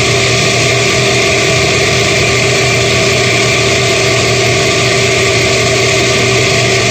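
Kitchen blender running at one steady speed, its motor holding an even pitch throughout.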